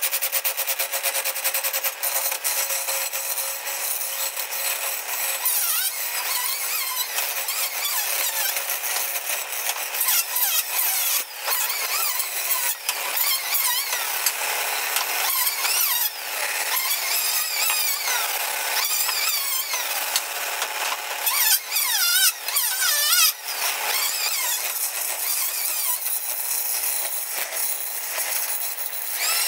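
Wood lathe turning a wooden rolling-pin blank while a hand-held chisel cuts the spinning wood, with a continuous scraping hiss. A wavering squeal of the tool on the wood comes and goes, mostly in the middle.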